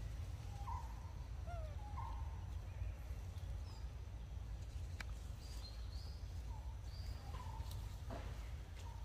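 Scattered short chirping animal calls, some pitched low and sliding up, a few higher and thinner, over a steady low rumble, with a couple of faint clicks.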